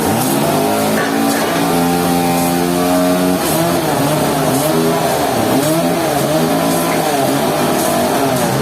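Sawmill machinery motor running. Its pitch rises at the start, holds steady, then from about three and a half seconds in swings up and down roughly once a second, as if the load keeps changing.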